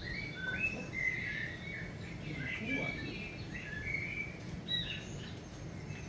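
Recorded birdsong from a cat-TV bird video playing through a television's speakers: a run of short, high chirps and warbled notes, one after another.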